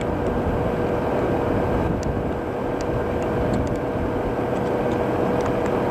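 Steady rushing wind noise on a rain-soaked, muffled microphone, with a constant low hum underneath and a few faint ticks.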